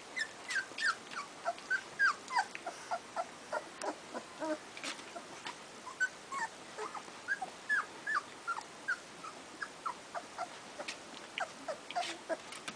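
Puppies whimpering and squeaking: many short, high cries that drop in pitch, several a second, overlapping without a break.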